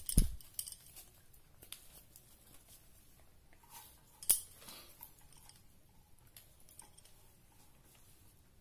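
A paper-wrapped egg roll handled on a stainless steel plate: light paper rustles and small clicks, a thump right at the start, and a sharp tap on the steel about four seconds in.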